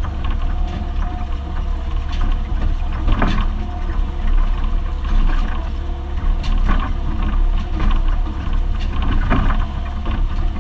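Mini excavator's diesel engine running steadily under digging load, heard from inside the cab as a strong low drone with a steady hum above it. Sharp knocks and scrapes come now and then as the bucket digs into soil and stump roots.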